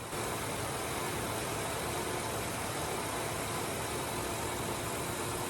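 1999 Ford Ranger's 4.0-litre V6 idling steadily, warmed up after a test drive.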